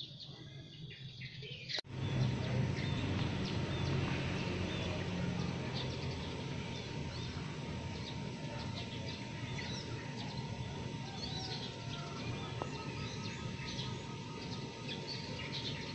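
Several birds chirping in a morning chorus, many short high calls over a steady background noise. About two seconds in, the background abruptly gets louder.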